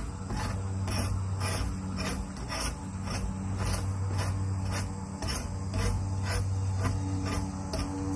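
Draw knife scraping bark off a log post in repeated pull strokes, about two a second, over a steady low hum.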